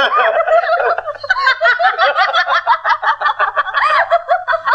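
Several people laughing heartily together in quick, repeated pulses, men's and women's voices mixed.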